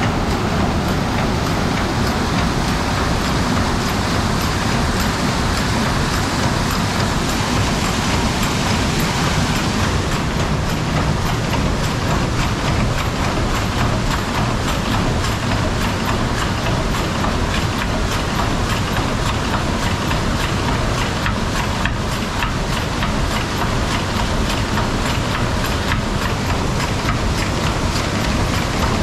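Water rushing hard through the wheel pit of a water-powered sawmill, a loud steady gush, with the mill's drive machinery clattering over it; the clatter grows busier from about ten seconds in.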